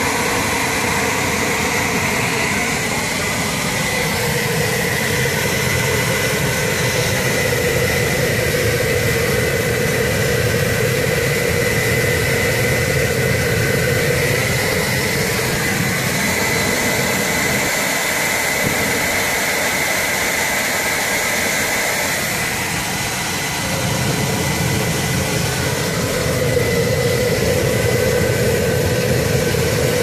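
Homemade propane crucible furnace running, a used hair dryer blowing air into its burner: a steady rush of air and burner flame with a high whine.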